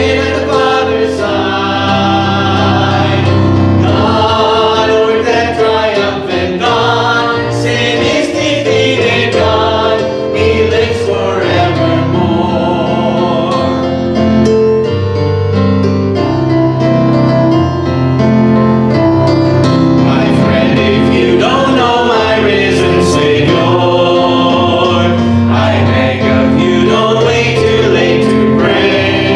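Small mixed choir of men's and women's voices singing a sacred song in harmony, with long held notes and changing chords.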